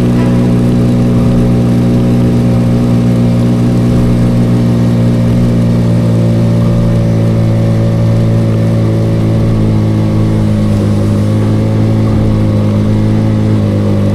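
Vespa scooter engine held at steady, high revs while the bike struggles for traction in loose sand.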